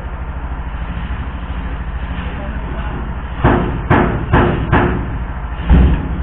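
A steady low engine drone, then from about halfway five heavy knocks of metal being struck in a truck's engine bay during engine removal, the last the loudest.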